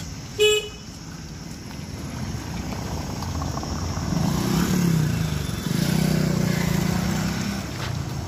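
A short, loud vehicle horn beep about half a second in. After it comes a motor vehicle engine running, which grows louder from about four seconds in and fades near the end.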